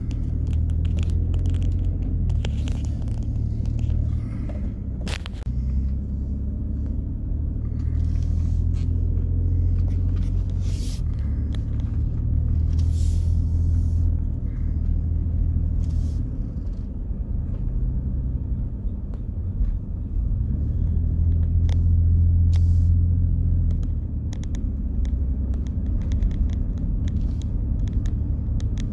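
Steady low rumble of a car driving slowly, heard from inside the cabin, with a few faint scattered clicks.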